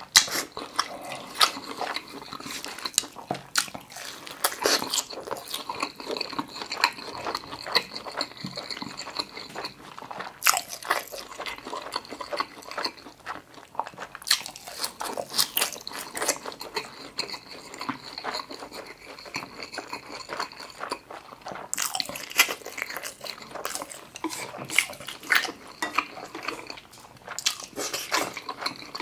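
Close-miked mouth sounds of a person chewing and biting food in a quick, irregular run of wet smacks and clicks, including a bite into a fried-tofu rice ball about halfway through.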